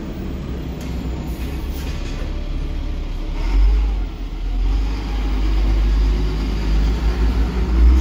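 Blue Bird CNG school bus driving slowly past at close range, its engine rumble swelling from about halfway through and loudest near the end as it comes alongside.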